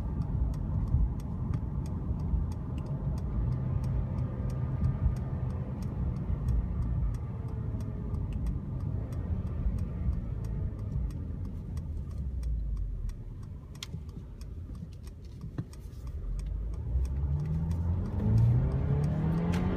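Inside the cabin of a 2015 Mercedes-Benz C300 4MATIC with its turbocharged four-cylinder: engine and road noise as the car slows, a quieter lull while it waits at a stop, then the engine rising in pitch as it pulls away and accelerates near the end. A turn-signal indicator ticks steadily through most of it.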